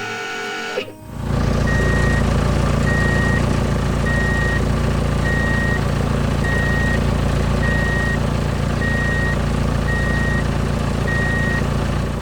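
A heavy vehicle's reversing alarm beeping about once every 1.2 seconds, nine beeps in all, over its engine running with a steady low rumble; both come in about a second in.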